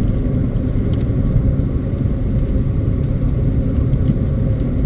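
Steady road and engine noise inside a moving car's cabin, a low even rumble.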